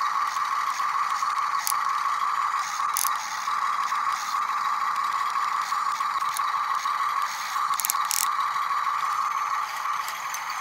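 Toy RC excavator's small electric gear motors whining steadily as the arm and bucket move, with a few brief clicks.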